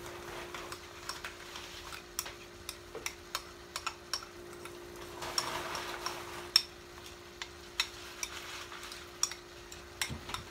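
A utensil clicking and scraping irregularly against a metal pot as pesto is stirred into cooked tortellini, with one sharper knock about six and a half seconds in. Shrimp in garlic and olive oil sizzle faintly in a skillet, over a steady faint hum.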